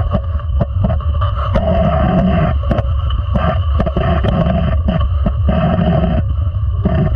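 Sled hockey sled gliding over the ice, heard from a camera fixed to the sled: a steady low rumble of the blades and frame on the ice, with irregular sharp knocks throughout.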